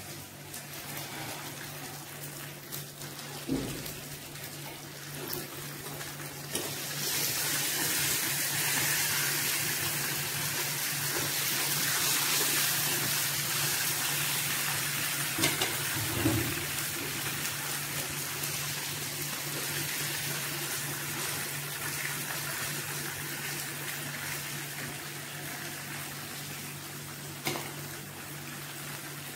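Breaded chicken pieces shallow-frying in hot oil in a nonstick pan: a steady sizzle that grows louder about seven seconds in. A few light clicks are heard along with it.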